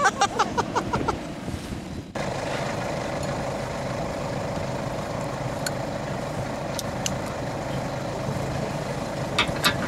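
Paramotor engine running steadily at a distance, a constant drone with one steady tone. It starts abruptly about two seconds in, after a moment of voices and handling noise.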